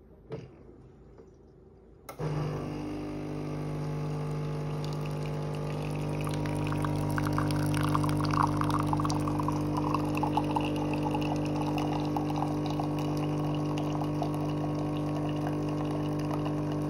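Schaerer Coffee Club bean-to-cup machine starts brewing about two seconds in with a steady hum. A few seconds later two streams of coffee splash from the twin spout into a glass.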